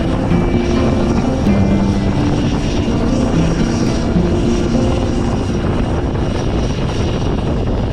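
Helicopter in flight, heard from inside the cabin: a steady, loud rotor and engine drone, with music mixed over it.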